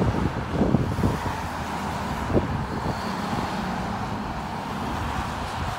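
Road traffic: cars and pickups passing on a highway close by, a steady rush of tyres and engines.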